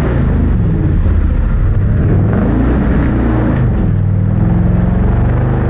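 Formula Offroad buggy's V8 engine at full throttle on a steep sand hill climb. The revs rise and fall as the tyres spin in the sand and the car bounces off the slope.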